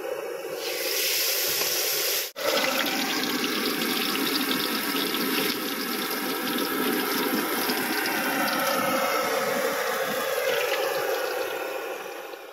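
Fish frying in hot oil in a kadai: a steady sizzle full of fine crackling, with a brief break about two seconds in.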